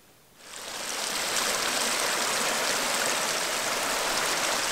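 Shallow mountain stream rushing over rocks and fallen branches, heard close up. It comes in about half a second in and runs on steadily.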